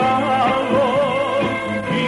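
Live band playing a folk-pop song, with a wavering lead melody line carrying strong vibrato over a steady bass and rhythm accompaniment.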